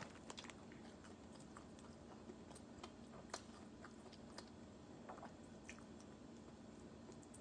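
Faint chewing, with scattered soft wet mouth clicks, while eating a Cajun seafood boil.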